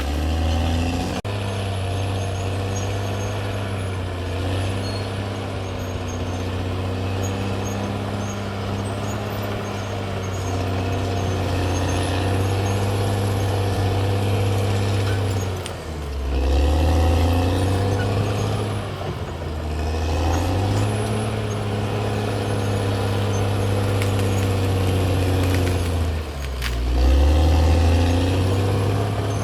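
CAT D6R XL bulldozer's diesel engine running steadily under load. Twice, about halfway through and again near the end, the engine note drops and then climbs back up.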